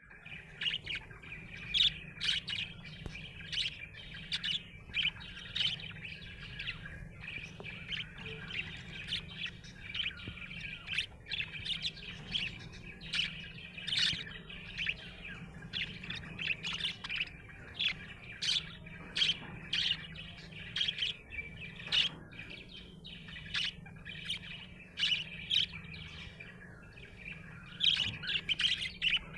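Budgerigar chirping: a quick, continuous stream of short, high chirps and tweets, several a second.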